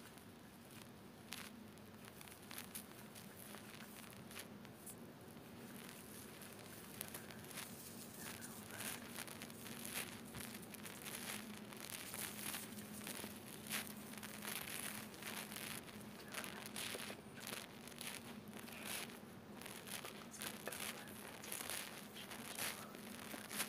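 Shaving foam being rubbed between the hands and worked close to the microphone: a dense, fine crackling and squishing that grows busier from about seven seconds in.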